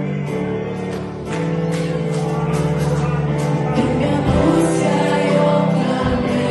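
Live worship band playing a gospel song, with keyboard and drums and a woman singing lead. The music grows fuller about a second in, and a bass line comes in later.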